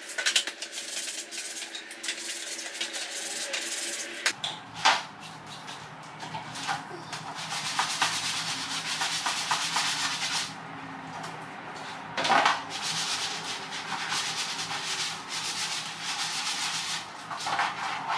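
A rag or sponge being scrubbed back and forth over removed plastic car interior trim pieces and a sunroof panel, cleaning them: a steady rough rubbing hiss, with a few knocks as the parts are handled.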